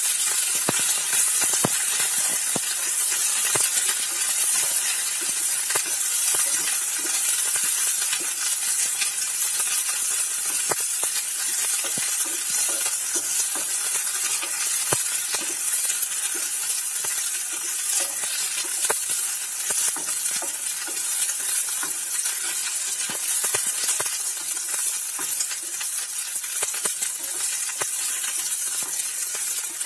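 Cut okra pieces sizzling steadily as they fry in hot oil in a non-stick frying pan, with frequent short clicks and scrapes of a spatula stirring and turning them.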